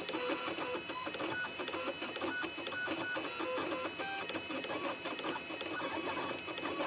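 Computerised engraving machine cutting lettering into a pocket watch's metal case: its motors whir in short runs that jump from pitch to pitch as the cutter traces each letter, over a steady high tone.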